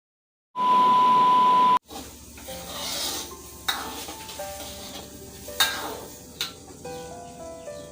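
A loud burst of hiss with a steady electronic beep, lasting about a second and cutting off abruptly. Soft background music follows, with a few sharp clicks.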